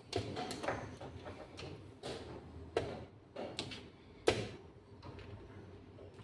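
Wooden chess pieces set down on a wooden board and the buttons of a digital chess clock pressed in quick alternation during blitz play. They make a rapid string of sharp clicks and knocks, the loudest about four seconds in.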